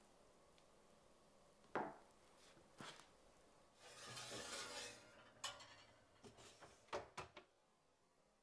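Faint kitchen handling: a couple of sharp knocks, then a glass baking dish scraping as it slides onto a wire oven rack about four seconds in, followed by several light clinks.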